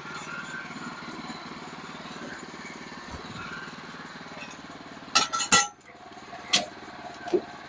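Sawmill engine idling steadily, with a few sharp metal clanks and clinks about five seconds in and again twice near the end.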